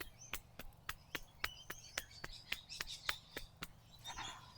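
A quick, regular run of sharp clicks or taps, about four to five a second, that stops near the end, with short, faint bird chirps in the background.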